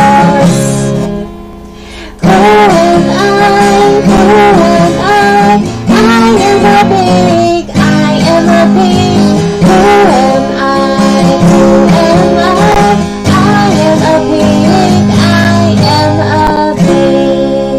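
Background music with guitar and a melody line, dipping briefly about a second in before carrying on.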